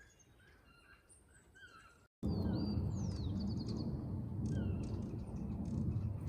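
Hummingbirds chirping with short, repeated calls. After about two seconds a loud, muffled, low drone of hummingbird wings beating sets in, with more chirps, a falling whistle and a quick run of high ticks above it.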